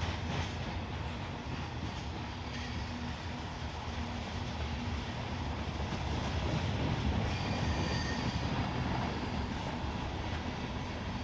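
Freight train rolling past with a steady rumble and rattle of railcars on the track. Faint, brief wheel squeals come now and then.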